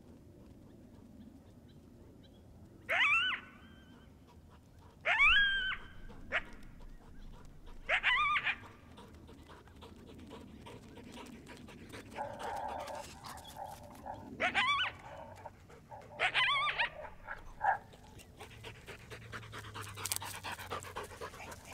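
A canine yelping: about six short, high yelps that rise sharply in pitch, a few seconds apart.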